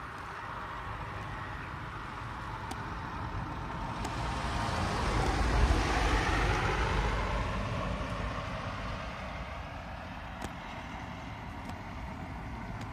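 A delivery van driving past close by: engine and tyre noise grows louder, peaks about six seconds in, then fades away.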